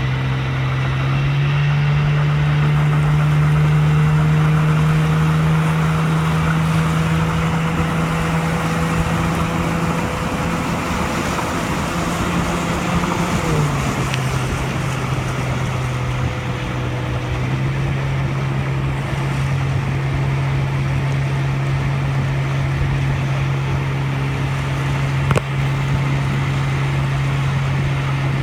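A small launch's outboard motor running steadily under way, with water and wind hiss. Its pitch rises slightly about a second in, then drops to a lower steady note around halfway as the throttle is eased. A single short knock comes near the end.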